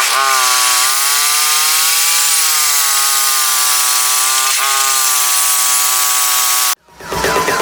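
Two-stroke chainsaw running at high revs, a steady loud whine with a rasping hiss, its pitch dipping briefly twice and sagging and recovering slightly. It cuts off abruptly near the end, giving way to electronic music.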